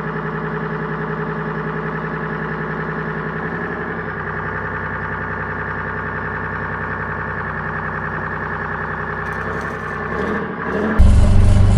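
A steady, buzzing electronic tone with a fast pulse. About eleven seconds in, a much louder, low engine-like rumble cuts in.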